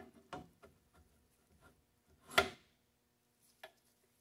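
Steel grinder plate and bolt being handled and fitted onto the belt grinder's aluminium tool arm: a few light clicks and knocks, with one louder clunk a little past halfway.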